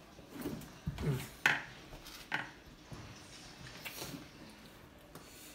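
Plates and chopsticks clinking and knocking as dishes are handled and passed at the table: a few short, sharp clinks, the loudest about a second and a half in.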